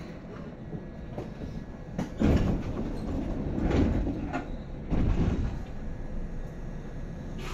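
Passenger sliding doors of a Seibu 2000 series electric train sliding shut at a station stop, heard from inside the car, with loud thuds about two, four and five seconds in.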